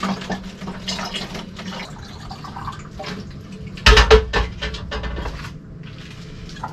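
Hot water poured from a metal stovetop kettle into a plastic soda bottle partly filled with cold water, filling for about four seconds. About four seconds in, a couple of loud clunks as the kettle is set back down on the portable stove.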